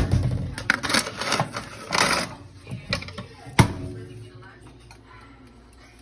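Kitchen clatter: irregular clicks and knocks with short scraping bursts, and one sharp knock about three and a half seconds in; it dies down after about four seconds.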